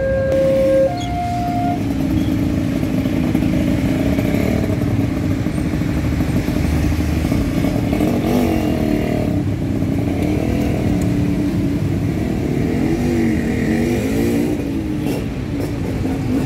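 Level-crossing warning alarm giving its last two alternating tones and stopping about two seconds in, then motorcycle engines running and revving, their pitch wavering in the middle and again near the end.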